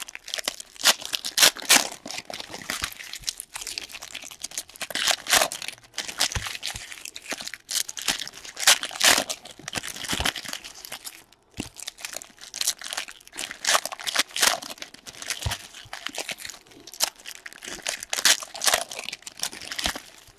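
Wrappers of 2016 Panini Donruss Soccer trading-card packs being torn open and crinkled by hand, a quick irregular run of rustles and rips.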